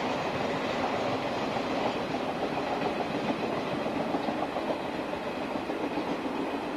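Orange-and-green suburban electric train running on the line, a steady rumble of wheels on rail with some clickety-clack over the rail joints.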